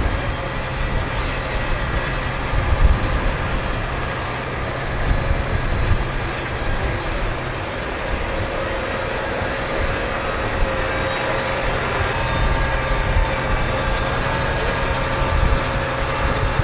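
New Holland T7.270 tractor's six-cylinder diesel engine running steadily as the tractor moves slowly with its seven-furrow plough lifted, a low rumble with a steady high whine over it.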